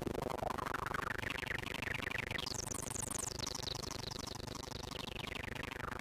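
Behringer MS-101 analog monosynth with its resonant filter swept by hand. The whistling peak rises steadily, leaps high about two and a half seconds in, then glides slowly back down over a steady low tone.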